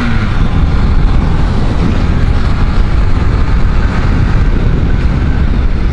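Kawasaki 900cc cruiser motorcycle riding along a street, its engine running under heavy, steady wind noise buffeting the camera's microphone.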